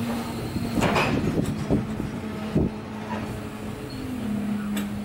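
Inside an Indian Railways express passenger coach on the move: a steady low hum and rumble, with a few sharp knocks and clanks from the carriage.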